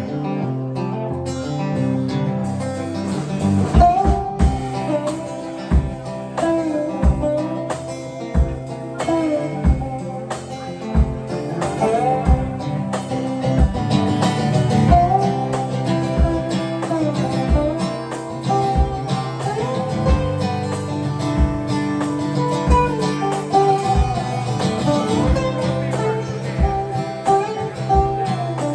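Live country music from an acoustic guitar and a drum kit, the kick drum keeping a steady beat under the guitar's melody, with no lyrics sung.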